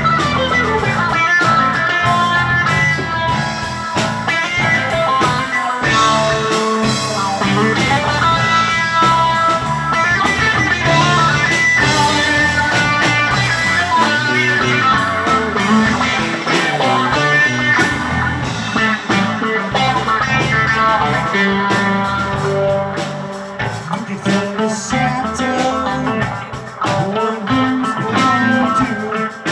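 Live rock trio playing a jam: electric lead guitar lines over bass guitar and drum kit.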